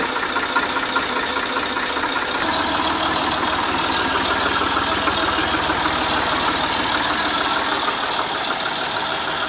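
Massey Ferguson 260 SE Turbo tractor's diesel engine running steadily at low speed.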